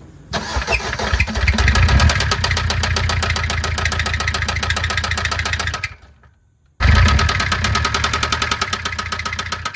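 A 2013 Maruti Suzuki Ertiga engine starts and runs for about five seconds with a rapid, heavy knocking, then shuts off. About a second later it is started again and knocks the same way. The knock comes from a seized connecting rod on the crank pin, which the mechanic puts down to lack of oil circulation.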